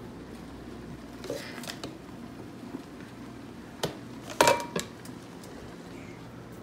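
Kitchenware being handled: a few light knocks about a second in, then sharp clinks of a frying pan and a ceramic bowl around four and a half seconds in, one of them ringing briefly.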